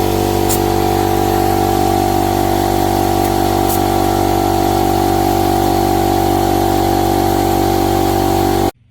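ERAYAK 2400W portable inverter generator running steadily with an even engine hum. It cuts off suddenly near the end.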